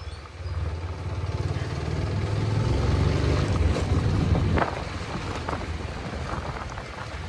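TVS Apache RTR 160 4V motorcycle's single-cylinder engine pulling the bike along at low speed. It grows louder as the bike accelerates over the first few seconds, then eases off about four and a half seconds in.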